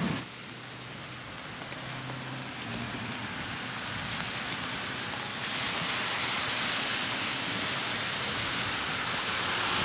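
Steady hiss of rain falling on wet pavement and foliage, growing louder about halfway through.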